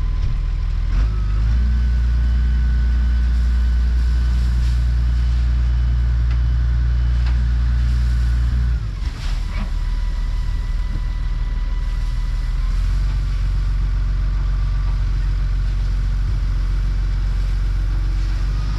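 Tractor diesel engine running steadily, with a thin high whine above the low engine hum. The engine note drops briefly about nine seconds in, then picks up again a few seconds later.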